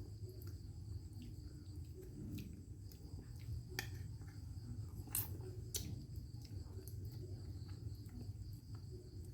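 Crickets chirring steadily over a low hum, with a few sharp clicks or taps about four to six seconds in.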